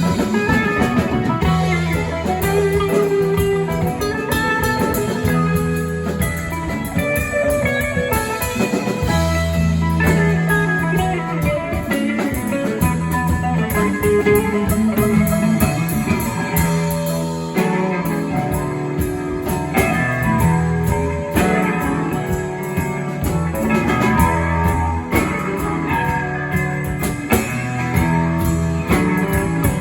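Guitar-led instrumental music with a steady bass line and beat.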